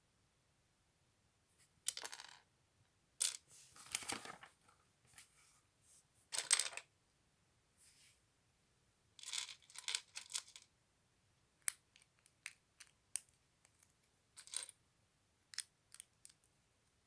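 LEGO pieces and their packaging being handled: several bursts of rustling and rattling plastic, then a string of short, sharp plastic clicks.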